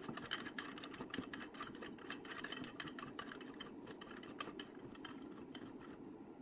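Hands tightening the thumbscrews that clamp the resin vat onto an Elegoo Saturn resin 3D printer: a run of faint, quick clicks and small scrapes, over a steady low hum from the printer's fan.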